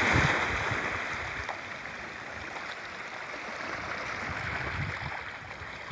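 Sea waves washing onto the shore, loudest at the start and then easing off as the water runs back.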